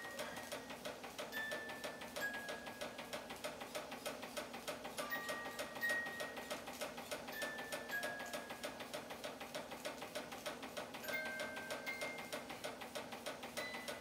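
Antique Märklin toy steam engine running steadily as it drives a toy carousel by its belt: a rapid, even ticking beat of about five a second. Faint, intermittent high tones sound alongside it.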